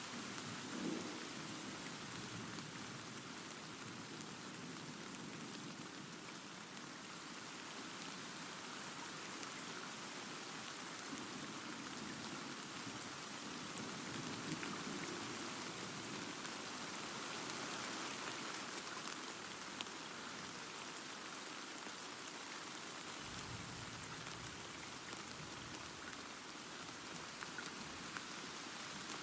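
Steady rain falling on surfaces, an even hiss of drops, with soft low rumbles of distant thunder swelling about a second in and again midway.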